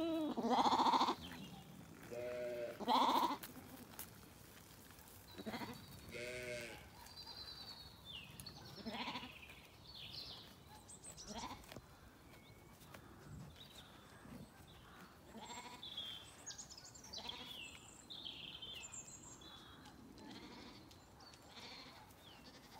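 Zwartbles lambs bleating: three loud bleats in the first few seconds, then quieter, scattered calls.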